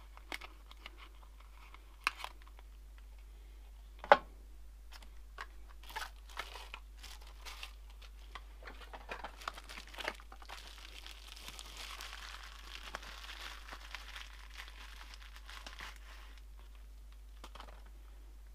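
Plastic packaging crinkling and rustling as hands rummage through a box of wrapped microscope accessories, with scattered small clicks and knocks of parts being handled. A sharp knock about four seconds in is the loudest sound, and a longer spell of steady crinkling comes past the middle.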